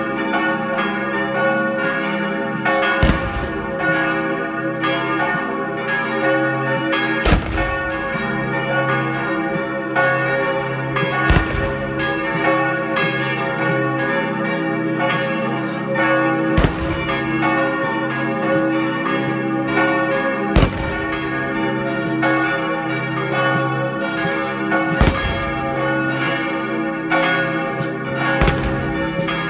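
Church bells pealing, several bells ringing together continuously, with a heavy strike standing out roughly every four seconds.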